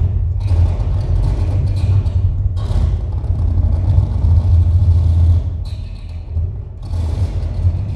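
Live noise music: a loud, dense low rumble with harsh rough noise above it, played on an amplified rig of metal springs and steel strips. It thins out for about a second near the end and then comes back.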